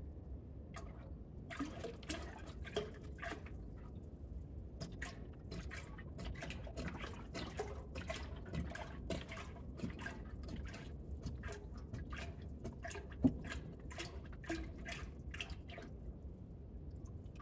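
Universal coolant being poured into a race car's ice-tank cooling reservoir: irregular glugs and drips of liquid, with one sharper knock about thirteen seconds in.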